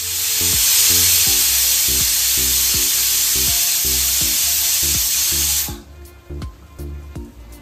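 Aluminium stovetop pressure cooker whistling: steam hisses out of the weight valve for nearly six seconds, then cuts off suddenly. It is the one whistle that signals the ghee rice inside is cooked.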